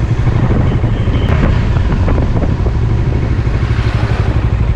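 Bajaj Dominar 400's single-cylinder engine running at low revs in third gear at a slow road speed, heard from the rider's seat, with an even pulsing beat that grows clearer near the end.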